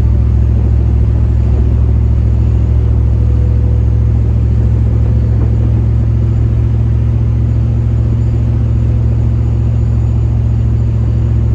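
Procharger-supercharged Chevy OBS pickup cruising at steady speed, heard from inside the cab: a loud, steady low rumble of engine and road noise with no change in revs.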